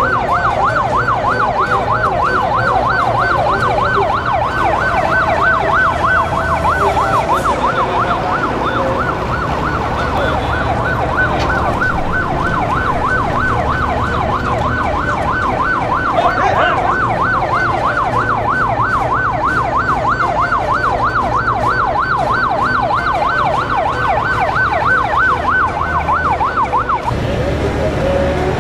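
Electronic siren sounding in a fast yelp, its pitch sweeping up and down a few times a second over a low steady engine hum; it cuts off near the end.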